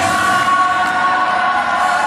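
A group singing together, holding a long note over music, with cheering from the crowd.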